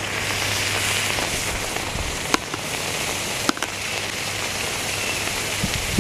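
Canned chicken and its juices sizzling and hissing steadily under freshly poured molten aluminum, with two sharp cracks, about two and a half and three and a half seconds in.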